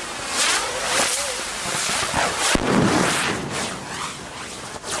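A sparking ground firework throwing out a shower of sparks: a loud rushing hiss that surges several times and eases off near the end.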